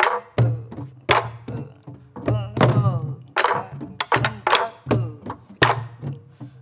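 Several sori-buk (Korean barrel drums for pansori) played in unison: deep booming strokes on the drumhead alongside sharp cracks of sticks on head and wooden rim, about two strokes a second in an uneven grouped jangdan rhythm.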